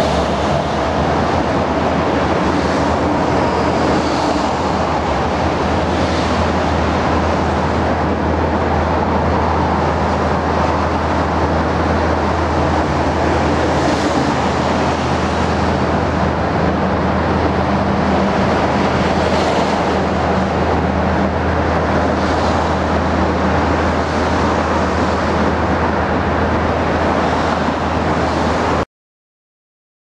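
Steady road traffic noise: a constant low hum under a rushing wash, with a few brief swells as vehicles pass, cutting off abruptly about a second before the end.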